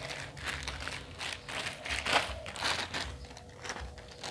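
Clear plastic glove crinkling and rustling as a gloved hand rubs over sun-dried pressed bananas on a woven tray, in a run of uneven rustles, loudest about two seconds in.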